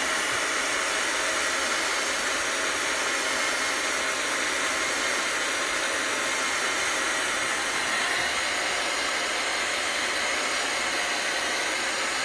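Handheld hot-air blower running steadily, an even rushing noise with a faint whine in it, drying freshly applied fabric ink on a cotton towel.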